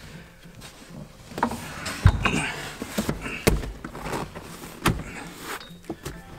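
Three dull thumps with handling noise and rustle between them, from work on the car's seat and interior.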